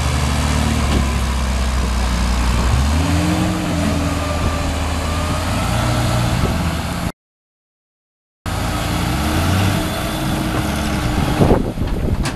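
Heavy diesel engines of a tractor and a Scania truck working hard under load as the tractor tows the bogged truck out of deep mud; the engine note rises about three seconds in. The sound cuts out completely for about a second midway.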